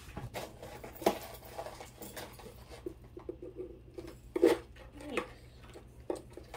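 Costume jewelry being handled and sorted: metal chains and beads clinking and rattling in small irregular bursts, with a louder clack about four and a half seconds in.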